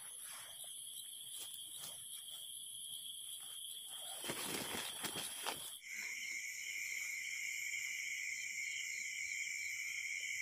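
Night insects trilling steadily in high-pitched tones. The chorus drops suddenly to a lower pitch about six seconds in. A burst of rustling and scraping comes from about four to five and a half seconds in.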